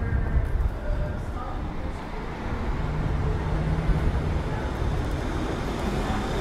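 City street ambience: a steady low rumble of traffic, with a vehicle's engine hum standing out for a second or so around the middle, and faint voices.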